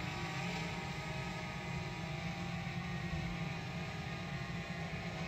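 Camera quadcopter drone's propellers humming steadily in flight.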